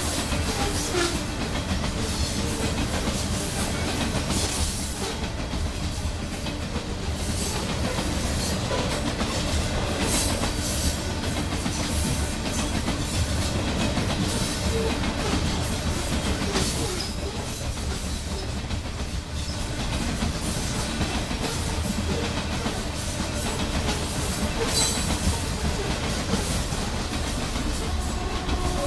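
Loaded coal hopper cars rolling past on steel rails: a steady rumble of wheels on track, with clacks as the wheels cross rail joints.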